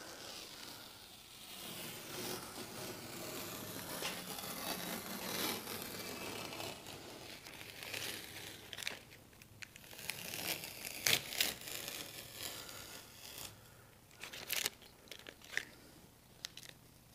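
Paper masking tape being peeled and torn off a glass pane along a freshly run silicone joint, crinkling as it comes away. In the second half come a few sharp clicks.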